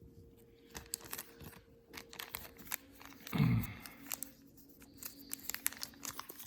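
Light clicks and crinkling from packaging being handled while a second watch is unwrapped, with one louder low thump about three and a half seconds in.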